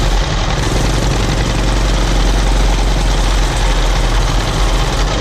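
Old farm tractor's engine running steadily at wide-open throttle under load, pulling a mower through wet hay, with a deep rumble under a dense mechanical hiss.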